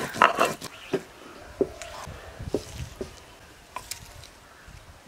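Stone grinder rubbed back and forth on a flat stone slab (shil-nora), grinding chilli and cumin into paste in quick strokes, several a second, that stop about a second in. After that, only a few faint knocks.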